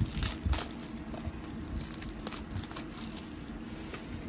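Plastic shrink-wrap being picked at and peeled off a DVD case, crinkling and crackling, most of it in the first couple of seconds.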